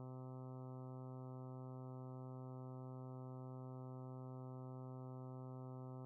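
Steady computer-generated hum of a simulated electric fan motor running in a circuit simulator: one low buzzing pitch with a string of overtones above it, holding constant.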